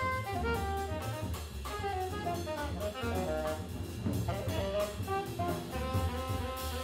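Jazz quintet playing live: saxophone and brass carry a melody of short, quickly changing notes over a bass line and drum kit with cymbals.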